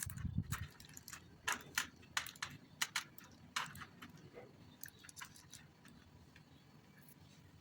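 Light clicks and taps of kitchen utensils and dishes being handled, with a dull knock at the start; the clicks come thick for about four seconds, then thin out.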